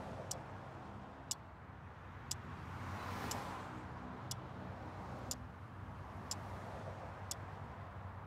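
Clock ticking steadily, one sharp tick a second, over a low rumble of distant traffic that swells about three seconds in as a car passes.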